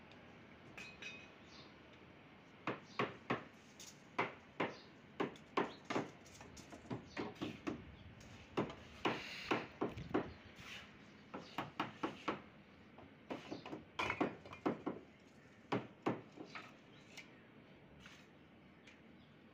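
A hammer knocking on the wooden and bamboo formwork of a concrete stair: an irregular run of sharp knocks, about two a second, starting a few seconds in and stopping a few seconds before the end.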